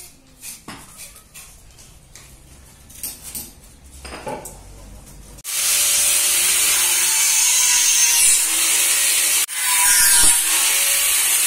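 Faint knocks from wooden pieces being handled, then about five and a half seconds in an electric hand power tool starts up on a wooden board and runs loud and steady, cutting out for a moment near the end before running on.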